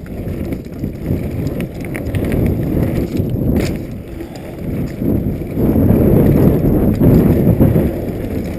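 Specialized Stumpjumper FSR mountain bike rattling and its tyres rumbling over a rough downhill dirt trail, with wind buffeting the camera microphone. A sharp knock comes about three and a half seconds in, and the rumble grows louder from about five and a half seconds in.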